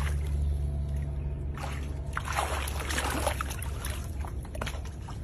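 Pool water sloshing and splashing around an alligator as it takes a piece of chicken at the surface and shifts in the water, loudest about two to three seconds in, over a steady low hum.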